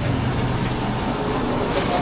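Steady running noise of an ЭТ2М electric train heard from inside the carriage: an even rumble with a low hum.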